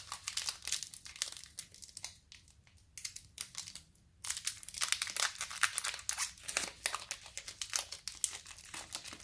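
Pokémon TCG booster pack's foil wrapper crinkling and crackling in irregular bursts as it is opened by hand, quieter for a moment around three to four seconds in and busier after that.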